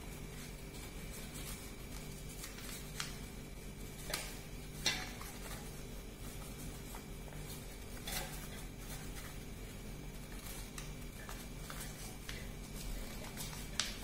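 Origami paper being folded and pressed by hand: faint handling of the paper with about half a dozen short sharp clicks and taps, the loudest about five seconds in, over a steady low hum.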